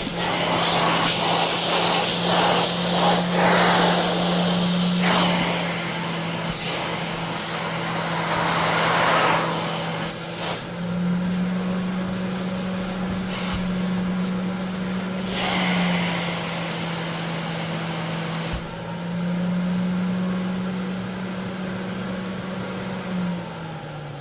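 Vacuum cleaner running: a steady motor hum under rushing airflow that swells and fades several times. About 23 seconds in the motor is switched off and its hum falls in pitch as it winds down.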